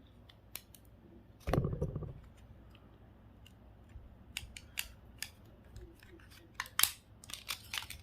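Small hand tools, snips or cutters, clicking and snipping as a GPS unit is taken apart. There is one louder clatter about a second and a half in, and the snips come quicker in the second half.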